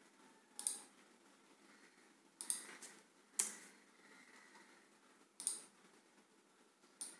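Faint, sharp clicks of a computer mouse and keyboard being worked, about five, spaced a second or two apart, over a low room hiss.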